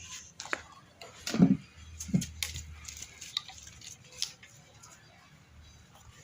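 Small clicks, taps and knocks of plastic bottles being handled while compressor oil is measured out, with a louder low knock about one and a half seconds in and another a little after two seconds.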